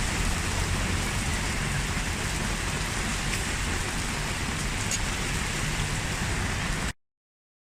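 Steady rain falling, with a low rumble underneath; it cuts off abruptly about seven seconds in.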